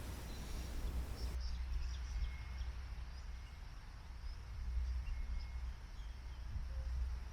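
Outdoor ambience: a low, fluctuating rumble with a few faint, short bird chirps.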